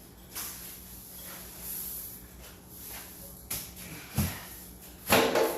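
Work handling noises: scattered knocks and rustles, a low thump about four seconds in, and a louder brief scrape or rustle about five seconds in.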